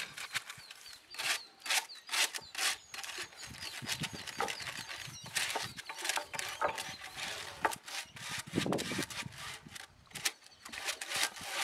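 Old Mangalore clay roof tiles being scrubbed clean by hand with a stiff stick brush, an irregular run of scraping and rubbing strokes against the terracotta.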